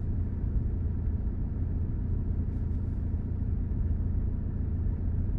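Steady low rumble of a car engine running at an even idle.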